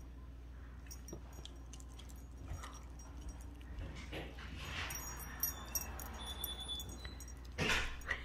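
Bernese mountain dog puppy licking and chewing a piece of mango: scattered small wet mouth clicks and smacks, with a louder burst near the end.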